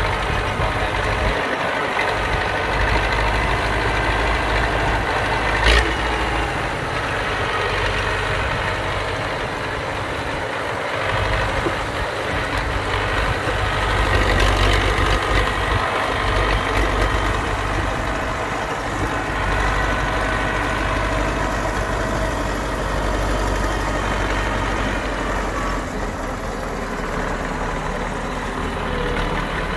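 Belarus tractor's diesel engine running steadily as it hauls a trailer loaded with cassava along a muddy track, with a single sharp knock about six seconds in.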